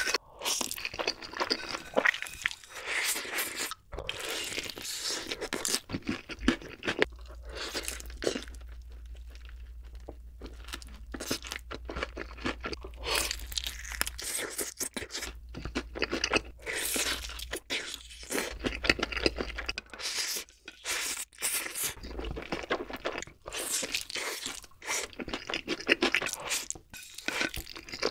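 Close-miked eating sounds: loud crunching bites of sauce-coated fried chicken and slurps of black bean sauce noodles, with wet chewing in between.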